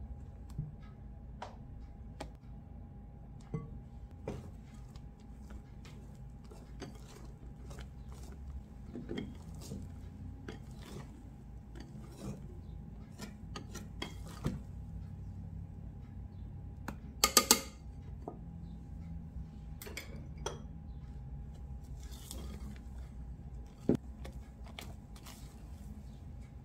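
Metal balloon whisk and silicone spatula working a batter in a glass mixing bowl: scattered light clicks and taps against the glass over a low steady hum. The loudest moment is a quick rattle of sharp clicks about 17 seconds in, with one more sharp click near the end.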